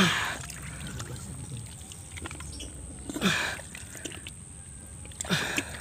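Wet mud and water squelching and gurgling around a forearm pushed into a flooded eel hole in rice-paddy mud, three times: at the start, about three seconds in, and near the end, each squelch sliding down in pitch.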